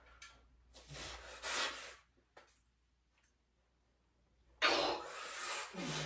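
Hard, noisy exhalations from a man straining through a set of weighted dips. One breath comes about a second in, then a pause, then a longer, louder breath near the end that finishes in a short low grunt.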